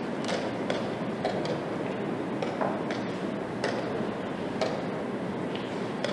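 Steady background noise of a playing hall with a handful of sharp clicks scattered through it, the loudest near the end.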